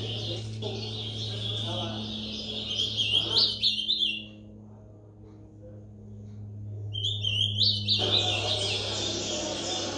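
Young ultramarine grosbeak (azulão) singing among other caged songbirds at a singing contest: quick overlapping whistled phrases with falling notes. The song stops for about three seconds midway, then resumes. A low steady hum runs underneath, and a broad background noise of the crowd comes in about eight seconds in.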